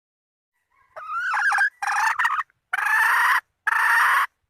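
A red junglefowl hen calls to a rooster. A short, wavering call comes about a second in, then three longer, drawn-out calls with abrupt stops. This is the call that trappers play to lure wild roosters.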